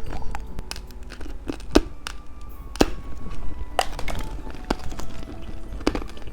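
Sharp clicks and crinkles of plastic candy packaging being handled as a Peppa Pig lollipop is unwrapped, about one click a second, over quiet background music.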